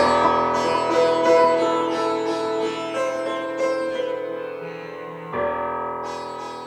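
Background music: sitar-like plucked strings over a sustained drone, fading toward the end.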